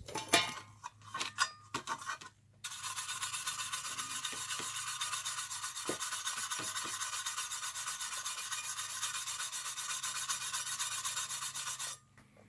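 Quick, steady back-and-forth rubbing, buffing shoe polish onto the rusty metal shell of a toy train tender: a dry rasping scrub that starts about two and a half seconds in and stops shortly before the end. A few handling clicks come before it.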